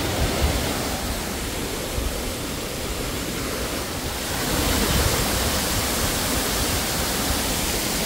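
Waterfall pouring down a rock face: a steady, loud rush of falling water, which grows louder and brighter a little past halfway.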